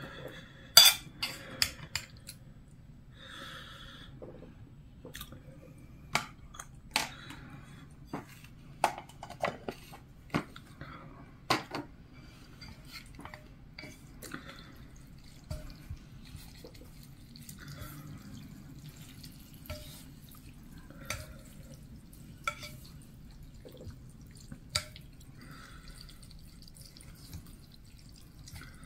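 Utensils working a bowl of bibim-guksu (spicy mixed noodles): a metal spoon clinks against the dishes as sauce is ladled, then chopsticks and a wooden spoon toss the noodles, giving scattered sharp clicks and soft wet squelching. A low steady hum runs underneath.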